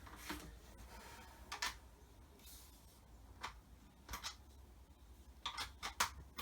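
A few scattered short clicks and light rattles of pressure-washer parts, such as the plastic nozzles and lance, being handled, with a cluster of clicks near the end.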